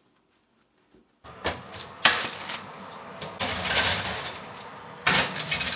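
Rustling and clattering of things being handled in a kitchen, with a few sharp knocks, starting about a second in and cutting off abruptly near the end.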